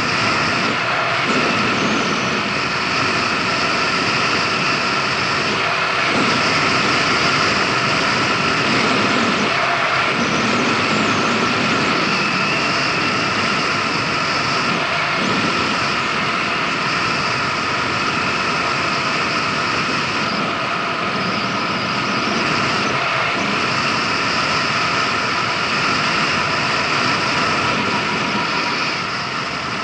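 Kymco Agility City 125 scooter cruising at around 50 km/h: a steady engine drone mixed with rushing wind on the action camera's microphone.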